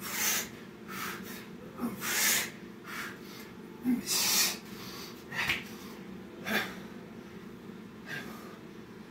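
A man breathing hard during burpees: short, noisy exhales and inhales about once a second, loudest about two and four seconds in, over a steady low hum.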